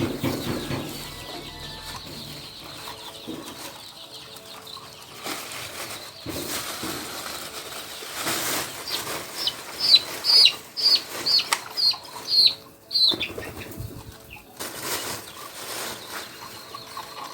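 Young Sonali chickens flapping their wings and scuffling. Midway, a chick gives a run of about eight short high peeps, about two a second.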